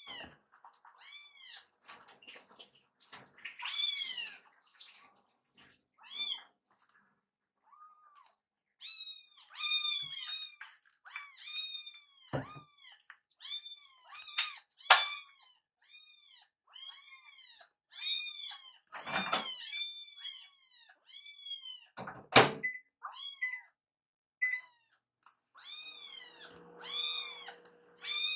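Two kittens meowing over and over, short high-pitched calls that rise and fall, about one a second, typical of kittens crying to be fed. Two sharp knocks cut in, at about 12 and 22 seconds.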